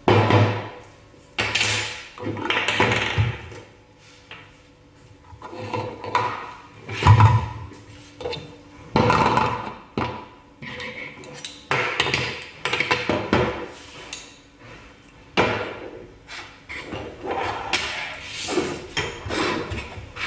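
Parts of a manual meat grinder being handled, with repeated knocks, clicks and clinks as pieces are set down and fitted together.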